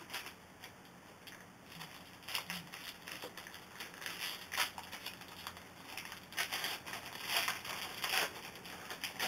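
Foil trading-card pack wrapper crinkling and tearing as a pack is opened and the cards are handled, in irregular bursts that get louder in the second half.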